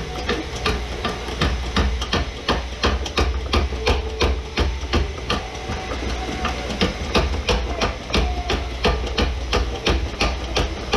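Hydraulic shop press running, its pump clicking rapidly at about four to five strokes a second over a low steady hum, as the ram comes down onto a pressing tool stacked on a front-wheel-drive wheel bearing in its steering knuckle.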